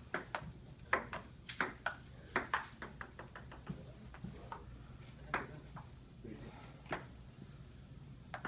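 Table tennis ball clicking off paddles and the table during a rally: a quick run of hits in the first few seconds, a pause of about a second and a half, then a few single, spaced hits.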